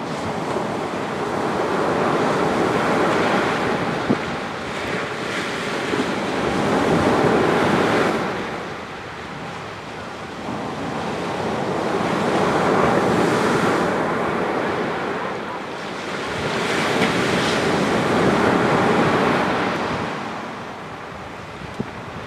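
Waves breaking and washing up a sandy beach on a slightly rough sea, the surf swelling and ebbing about four times.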